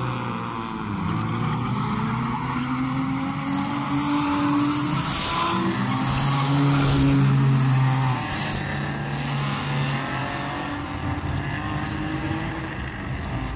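Drift cars sliding on a wet track: engines revving up and down at high revs with tyre noise, loudest about halfway through.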